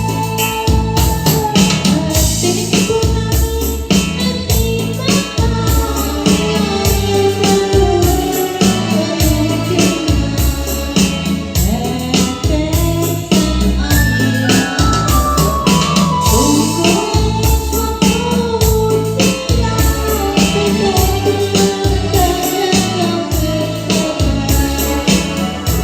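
Music with a steady, dense beat and a melody that glides up and down.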